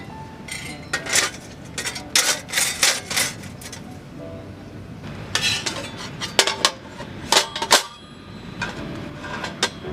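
Thick stainless steel fire-pit plates clanking and clinking against each other as they are handled. The metallic knocks come in two bunches with a pause between them.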